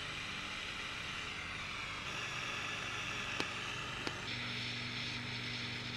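Jeweller's gas torch hissing steadily as its flame heats a silver ring assembly for hard soldering, with a low hum beneath. Two light clicks of metal on metal come in the middle, and the hiss grows a little louder just after them.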